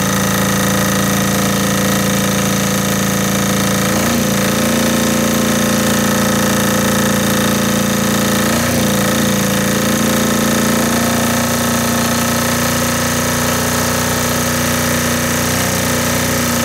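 Air-cooled diesel generator running steadily under load. Its engine note steps up slightly twice, about four seconds in and again near nine seconds, as the governor speed screw is turned to bring the output to 60 Hz.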